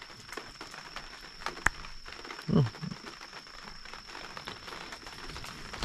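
Faint handling noise from brass garden-hose end fittings being turned in the hands, with one sharp click about a second and a half in.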